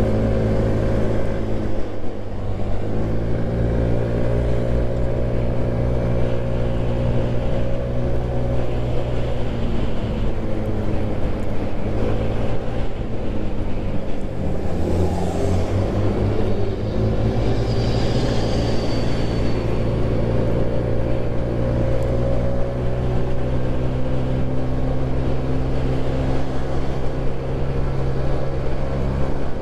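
Motorbike engine running at a steady cruising speed, heard from the rider's own bike; its note dips and picks up again about two seconds in and once more about halfway through as the throttle is eased and reopened.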